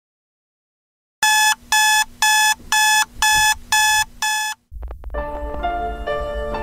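Smartphone alarm going off: seven short, loud electronic beeps at one pitch, about two a second, then it stops. Just after, background music comes in.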